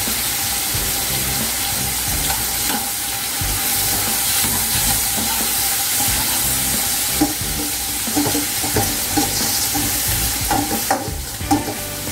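Sliced pork frying in hot oil in an aluminium wok, sizzling steadily. A metal spoon stirs the pork, with short scraping clinks against the pan from about halfway through.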